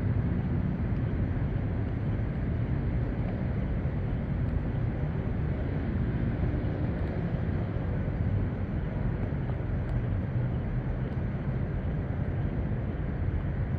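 Steady outdoor background rumble, heaviest at the low end, with no distinct events standing out.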